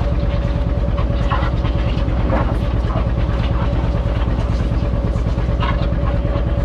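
Farmall B tractor engine running steadily close by with an even, rapid firing pulse, the tractor standing still while hitched to the pulling sled.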